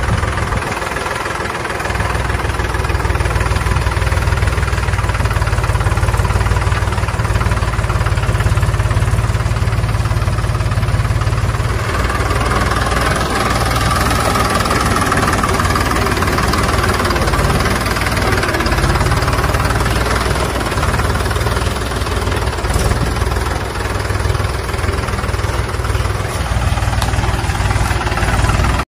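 Small engine of a homemade mini tractor running steadily as the tractor drives along. The sound cuts off suddenly near the end.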